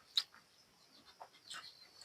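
Close-up mouth sounds of eating buffalo curry and rice: a sharp wet smack just after the start, then faint chewing clicks.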